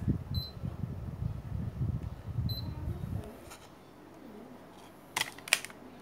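Indoor unit of a Changhong split air conditioner giving two short high beeps about two seconds apart as it takes commands from its remote, over a low handling rumble. A few loud clicks follow near the end, from the remote's buttons being pressed.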